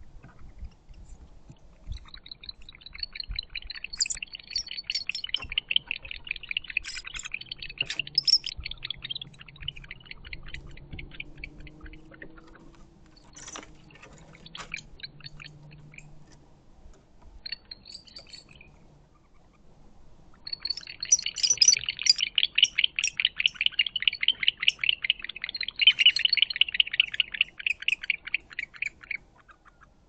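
Barn owls giving a rapid, chittering twitter of short repeated calls in two long bouts, the second louder, with a few scattered clicks and scuffles between them. Agitated calling between owls at the nest box.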